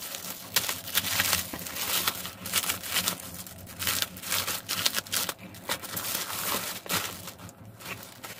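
Clear plastic bag crinkling and rustling in the hands as a mousepad is slid out of it, in quick irregular bursts.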